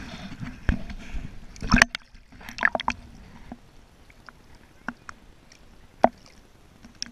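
Water sloshing and splashing against a waterproof action camera held at the surface while a person wades neck-deep, busy for the first couple of seconds, then scattered sharp splashes and knocks.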